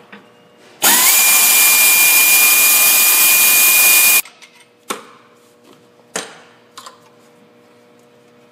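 Pneumatic air ratchet running for about three seconds to loosen the electronic throttle body's mounting bolts: a loud rush of air with a high whine that rises as it spins up, holds steady, then cuts off suddenly. A few light metal clinks follow.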